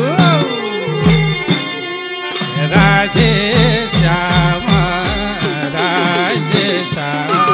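Nepali folk bhajan ensemble playing an instrumental passage: a steady beat of madal hand drums with cymbal and khaijadi frame-drum strokes, under held harmonium chords and a wavering bansuri flute melody.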